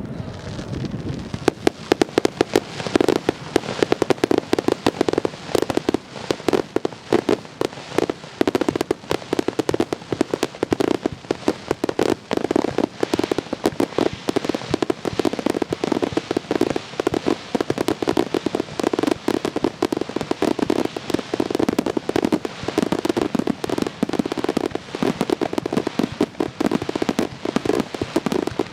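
Starmine fireworks barrage: a dense, unbroken run of shells bursting in rapid succession, bangs and crackles overlapping, building up about a second in.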